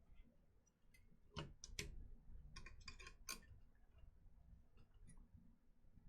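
Faint scattered clicks and taps of a graphics card's small plastic cable connectors being handled and pushed back into their sockets, bunched together in the first half, over near silence.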